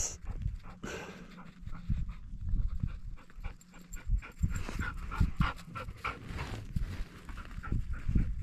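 A dog panting, with scattered soft taps and rustles.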